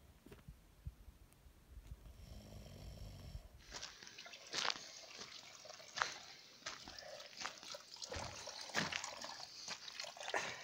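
A sleeper's brief snore, then water trickling and splashing from the tap of a plastic IBC water tank as a man scoops it up by hand to wash, with many sharp splashes.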